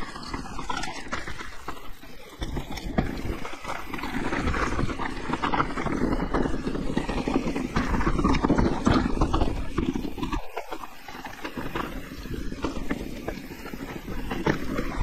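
Electric mountain bike riding down a rough enduro trail: continuous rushing of tyres and wind with many small knocks and rattles from the bike over uneven ground, the loudness rising and falling, with a short lull about ten seconds in.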